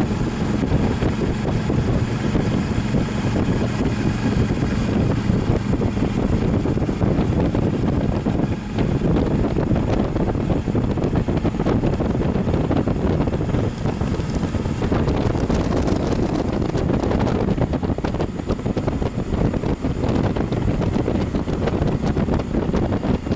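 Steady wind noise on the microphone from riding a Suzuki V-Strom motorcycle, with the bike's engine running underneath.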